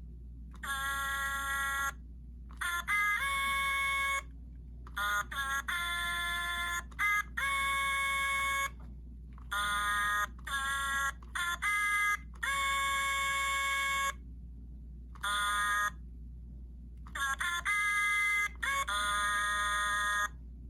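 Purple Sing-a-ma-jig musical plush toy sounding its electronic singing voice in a series of squeezes: short runs of held, beeping notes that step between pitches and cut off sharply, with pauses between them, over a steady low hum.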